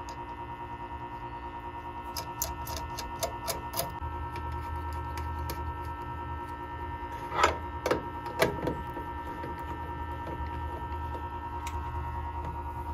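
Small metal clicks and clinks of wire terminals being fitted onto a railroad signal relay's threaded terminal posts, with a few louder knocks about halfway through. A steady electrical hum and a high steady whine run underneath.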